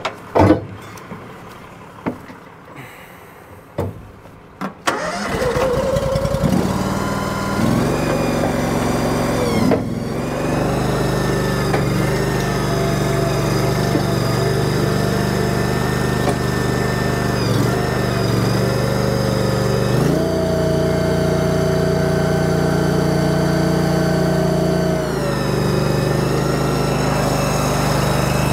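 A few sharp metal knocks and clanks, then a Cardinal Shed Mule shed mover's engine starts about five seconds in and runs steadily. About twenty seconds in it runs up to a higher pitch for about five seconds, then settles back.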